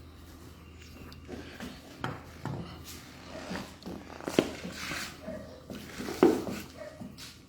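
A hen pecking chicken feed off the bingo board: irregular sharp taps, with short soft clucks in between.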